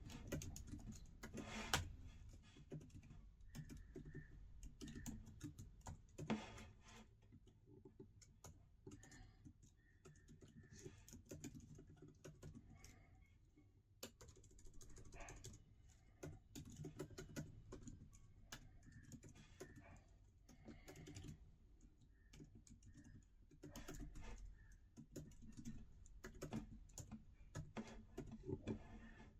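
Typing on an Apple MacBook Pro 14-inch laptop keyboard: a steady, irregular run of soft, quiet key clicks, with now and then a louder stroke, such as a space bar or a return key.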